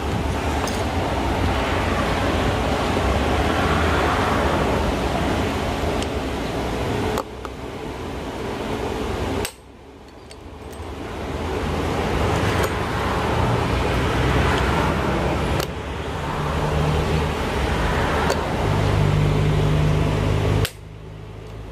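Steady running noise of a machine or engine, with a low hum that grows stronger over the last few seconds, and a few sharp clicks as a hand pop-rivet tool is worked on a pulley.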